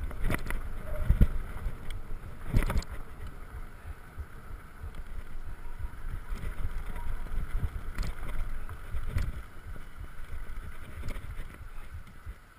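Mountain bike being ridden over a rough sandy dirt trail: wind and tyre rumble on the camera microphone, broken by sharp knocks and rattles as the bike hits bumps. The loudest knocks come about a second in and about two and a half seconds in.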